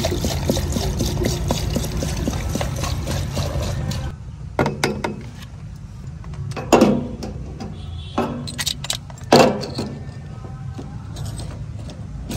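Liquid pouring and gurgling from a plastic jerrycan through a plastic funnel into a JCB backhoe loader's fuel filler, cutting off about four seconds in. Then come a few sharp knocks and clatters as the funnel and the locking filler cap are handled, the loudest two about seven and nine and a half seconds in.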